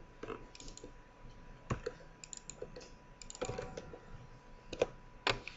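Computer keyboard keystrokes, sparse and irregular: single taps and short runs of a few keys with pauses between them.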